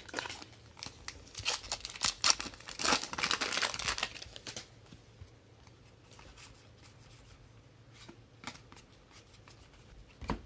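Plastic wrapper of a 2016 Donruss Football trading-card pack being torn open and crinkled for about four and a half seconds, then faint clicks and rustles of the cards being handled, with one sharp tap near the end.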